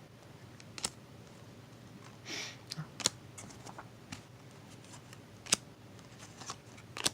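Trading cards being handled and sorted: scattered sharp clicks and taps as cards are flipped and set down, with a brief sliding rustle a little over two seconds in.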